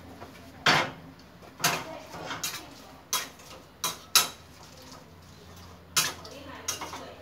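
A metal spatula clanking and scraping against a one-handled steel pan as beef is stir-fried in it: about eight sharp, irregular knocks.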